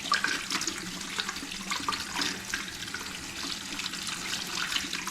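Bathroom sink faucet running water into the basin, splashing steadily as the drain is flushed out after being cleared of a clog.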